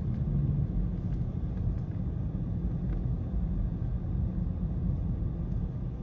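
Steady low rumble of a car driving along a road, heard from inside the cabin: engine and tyre noise.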